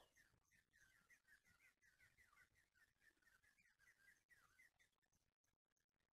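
Faint chirping of small birds: a quick, steady string of short high chirps that stops about five seconds in.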